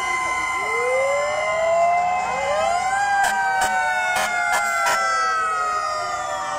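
Several fire truck sirens wailing at once, their pitches rising and falling out of step over steady held tones from other sirens. A quick run of sharp knocks comes through in the middle.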